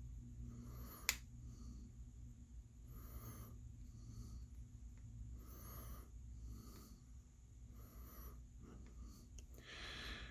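Faint steady low electrical hum under soft breaths every couple of seconds, with one sharp click about a second in, while a soldering iron is held on a circuit board's solder joint.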